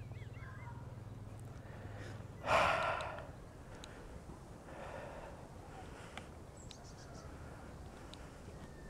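A man's sharp breath out close to the microphone about two and a half seconds in, and a softer one a couple of seconds later, with a few faint clicks. A low steady hum stops just before the first breath.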